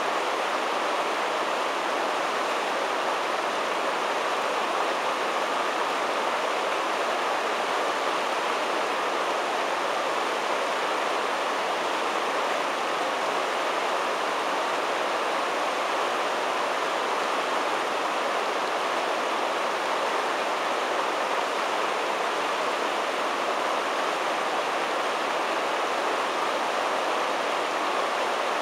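Whitewater rushing through a river's standing wave: a steady, even noise of churning water without breaks.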